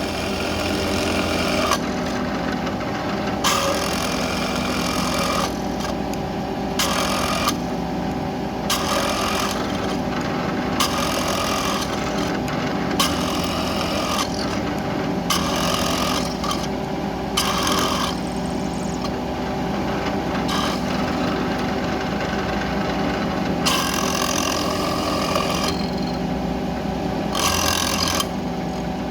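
CNC milling machine cutting aluminium: a steady machine and spindle hum with harsher cutting noise that comes and goes every second or two.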